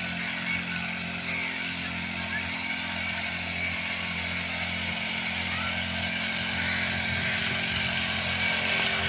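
Motorized backpack crop sprayer running steadily: a small engine drone with the hiss of the spray mist over it. The sound grows gradually louder.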